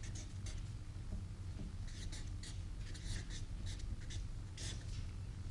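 Felt-tip marker writing on chart paper: a run of short, irregular scratchy strokes, over a steady low hum.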